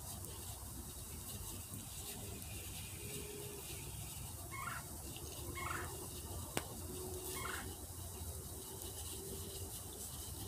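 Three short warbling bird calls about a second apart, over a steady outdoor hiss, with one sharp click between the second and third calls.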